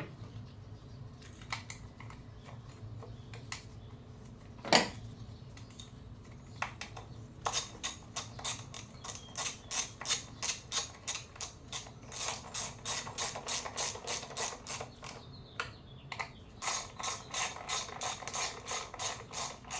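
Hand ratchet clicking in quick, even strokes, about three a second, as a bolt is turned while an ignition coil is refitted, with a pause partway through. A single sharp knock comes about five seconds in.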